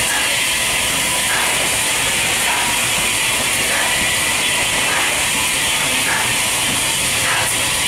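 Bulleid Battle of Britain class three-cylinder steam locomotive 34067 Tangmere pulling slowly away with its support coach, with a steady hiss of steam and a faint regular beat a little over once a second.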